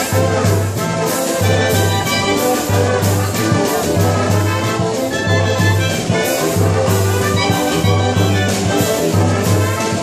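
A traditional Colombian festive brass band playing live: trumpets, saxophones and sousaphones over bass drum and cymbals. The bass line repeats in short blocks under a steady beat of about two strikes a second.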